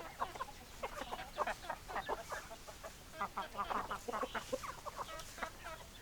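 A flock of chickens clucking, many short overlapping calls from several hens at once.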